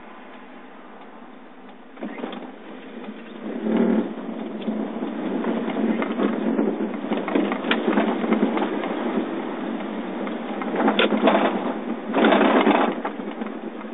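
Car interior noise picked up by a phone: a quiet steady hum at first, then from about two seconds in the car pulls away and engine and wet-road tyre noise rise and continue, with two louder noisy stretches, one near four seconds and one near the end.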